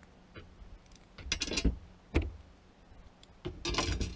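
Small metal hardware, bolts, a rubber bumper and the rack plate, being handled on a plastic folding table: a few short clicks and knocks, with a longer scraping rustle near the end.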